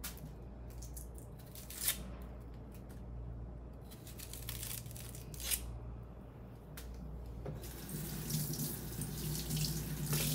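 Kitchen tap running as a peeled red onion is rinsed under it, starting about three-quarters of the way in; before that, a few short clicks from handling the onion.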